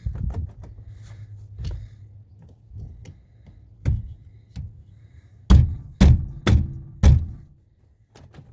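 Honda Odyssey rear sliding door's inside handle being pulled and released, the handle and latch mechanism clunking as the newly installed actuator is tested. A few soft clunks come first, then four loud clunks about half a second apart.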